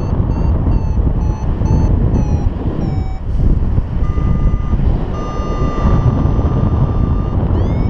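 Paragliding variometer beeping over loud wind rush on the microphone: quick short beeps, about two or three a second, for the first three seconds, then after a short gap longer steady tones at a higher pitch, ending with a brief rising chirp. The quick beeping is the vario's signal that the glider is climbing in lift.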